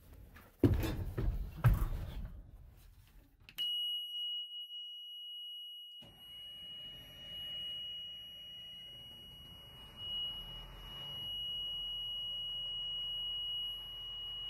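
A few clunks and knocks of climbing into the M1090 LMTV cab, then the truck's low-air-pressure warning buzzer (the 'screamer') comes on about three and a half seconds in: one steady, shrill, unbroken tone. A couple of seconds later the truck's diesel engine starts and runs faintly beneath it; the buzzer is warning that brake air pressure is still low while it builds.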